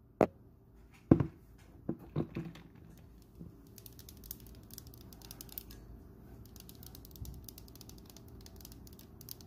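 A glass of iced tea being stirred and handled: a few sharp clinks and knocks in the first couple of seconds, then from about four seconds in a fast run of light ticks of ice and fingers against the glass.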